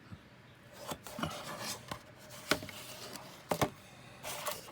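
A boxed plastic figure kit being handled and turned over: rubbing and rustling with a few sharp clicks and taps, the loudest a quick pair about three and a half seconds in.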